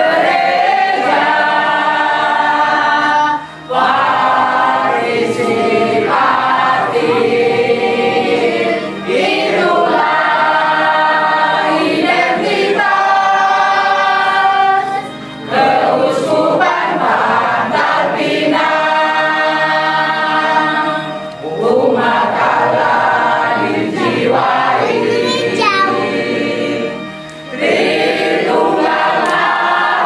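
A small congregation of men and women singing a hymn together at the close of Mass, in line-long phrases with brief pauses between lines.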